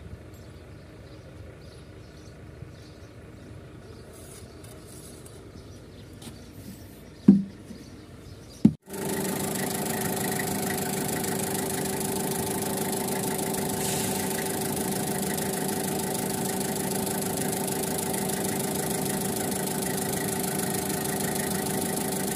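Two short knocks, then a forklift engine idling steadily for the rest, just refilled with fresh engine oil.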